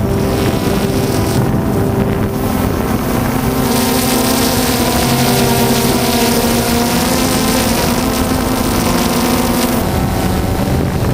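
DJI Phantom 2 quadcopter's motors and propellers whining steadily in flight, picked up close by the onboard GoPro, with wind rushing over the microphone. The rush turns brighter and louder for several seconds in the middle.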